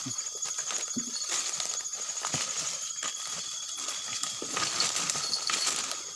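Night-time forest insects trilling steadily at several high pitches, one of them a fast pulsing trill. Over the trilling come footsteps and the rustle of leaves and twigs as someone pushes through undergrowth.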